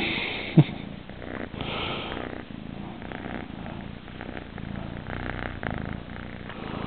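Young ginger kitten purring steadily right at the microphone, with fur and hands rubbing against the phone and a sharp knock about half a second in.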